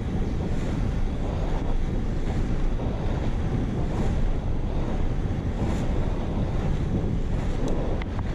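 Wind buffeting an action-camera microphone on a pole moving at about 30 km/h, a steady low rushing roar.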